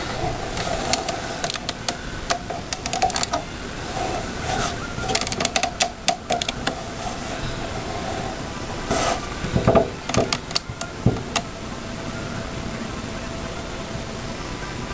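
Irregular clicks and light knocks of computer hardware being handled and fitted, loudest in a cluster a little past the middle, over a steady faint hum.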